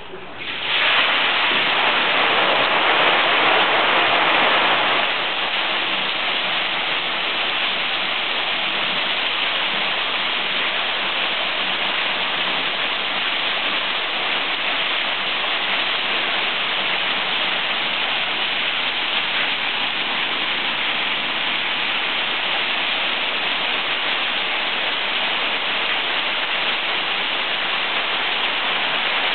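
Water gushing onto and spilling over a wooden mill waterwheel, starting suddenly about a second in as the flow is let onto the wheel. Loudest for the first few seconds, then a steady rushing splash.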